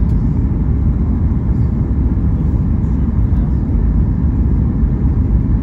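Steady low rumble inside the cabin of a Boeing 737 MAX 8: its CFM LEAP-1B engines and the rush of airflow, heard from a window seat.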